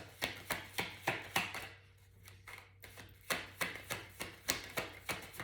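Tarot cards being shuffled and handled by hand: a run of sharp card slaps and taps, about three or four a second, softer for a moment midway.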